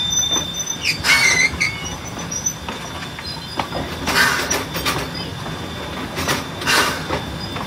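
Amusement-park railroad steam locomotive running along the track: a steady rumble of running gear with a faint high whine, broken three times by short loud rushing bursts.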